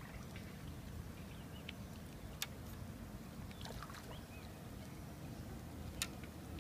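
A hooked carp swirls and splashes at the surface right by the bank, over a steady low rumble. Two brief sharp slaps stand out, one about two and a half seconds in and a louder one near the end.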